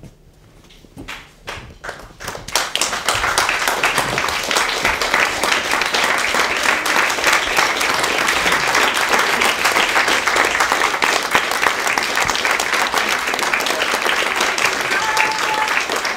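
Theatre audience applauding: a few scattered claps, swelling into full applause about two and a half seconds in.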